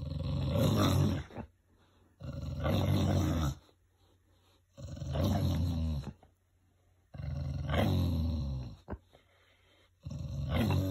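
English bulldog play-growling while tugging on a rubber toy: five deep growls of a second or more each, separated by short pauses. The growl is mock aggression in play, not a real threat.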